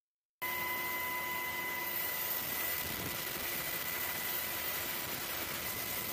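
Inside the cabin of a UH-60 Black Hawk helicopter in flight with the door open: a steady rushing noise of rotors and engines with a constant high whine. It cuts in suddenly about half a second in.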